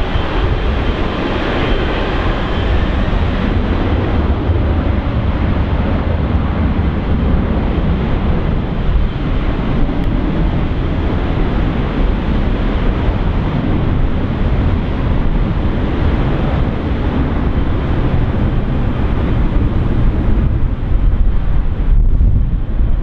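Boeing 747-400's four GE CF6-80C2B1F turbofans at takeoff power, a steady jet roar as the aircraft rolls away down the runway, with a high engine whine that fades in the first few seconds. Wind buffets the microphone throughout.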